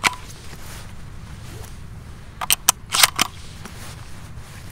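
Shotgun shells being loaded through the loading port of a Browning Maxus 2 semi-automatic 12-bore: metallic clicks of a shell pushed over the shell lifter and snapping into the magazine. One click comes at the very start and a quick cluster of about four comes about two and a half seconds in.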